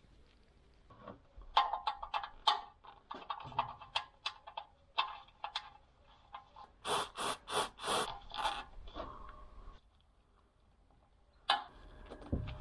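Metal tools and parts being handled: a run of sharp clinks, knocks and scrapes, some with a brief ringing. It pauses near the end, then one more knock.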